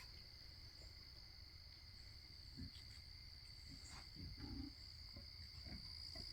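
Faint, steady chirring of crickets, with a few soft low thuds around the middle.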